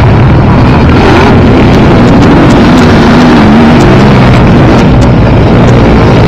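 Motocross sidecar outfits racing past close by, their engines loud and revving, one rising in pitch about midway through.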